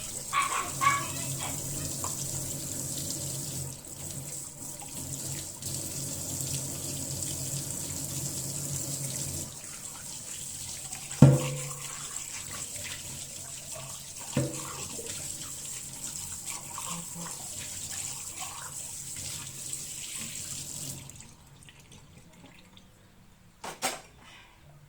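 Tap water running steadily into a sink while kitchenware is washed, with two sharp clanks about halfway through. The water shuts off a few seconds before the end, followed by one more clank.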